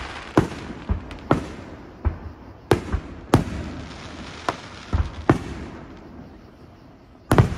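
Aerial firework shells bursting in an irregular series of sharp bangs, at times two or three a second, each with a short echoing tail. A quieter stretch of about two seconds comes before a loud double bang near the end.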